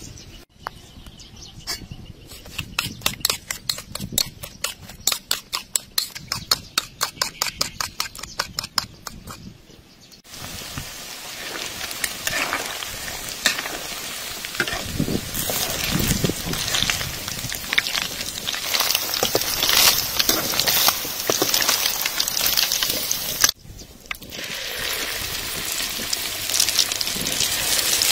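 Quick rhythmic clicking of a utensil stirring seasonings in a bowl, then, about ten seconds in, battered small fish deep-frying in hot oil with a dense crackling sizzle. The sizzle breaks off briefly about two-thirds of the way through and then resumes.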